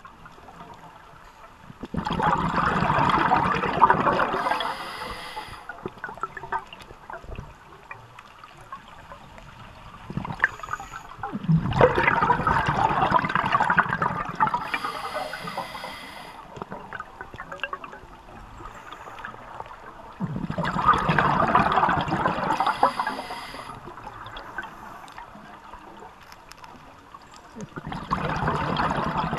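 Scuba diver breathing through a regulator underwater: the exhaled air bubbles out in a bubbling, gurgling burst of about three seconds, four times, roughly every nine seconds, with a quieter watery hiss between breaths.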